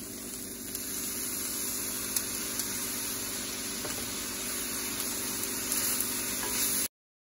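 Diced chicken sizzling steadily in a hot nonstick frying pan as balsamic vinegar is drizzled over it and it is stirred with a spatula, with a couple of faint clicks. The sizzle cuts off abruptly just before the end.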